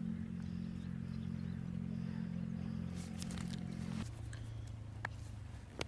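Steady low mechanical hum, like an engine or motor running, that drops to a lower, thinner hum about four seconds in, with a few faint clicks near the end.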